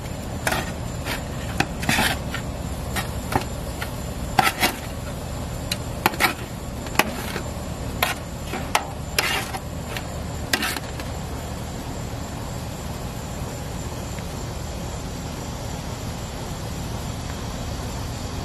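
Seasoning shaker shaken over food on a metal sheet pan: about a dozen short, irregular rattling shakes over the first ten seconds or so. After that only a steady low background hum.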